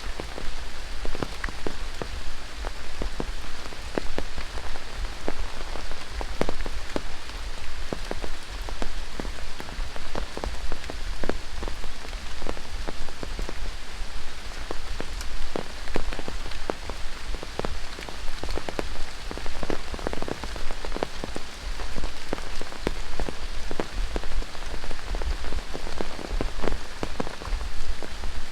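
Steady tropical rain falling in rainforest, with a dense, irregular patter of separate drops landing close by over the steady hiss.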